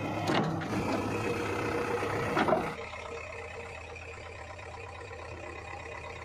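JCB 3DX backhoe loader's diesel engine running, with loud knocks and scraping for the first few seconds; from about three seconds in, the engine runs on steadily and more quietly.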